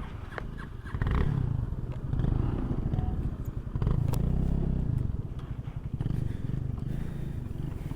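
Motorcycle engine running under way, the throttle opening and easing off several times, with a few sharp clicks and knocks mixed in.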